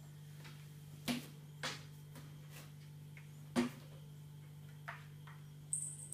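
A Scottish Straight kitten's paws swatting and landing on a plastic windowsill: about six short taps and knocks at uneven spacing, the loudest two about a second and three and a half seconds in, over a steady low hum.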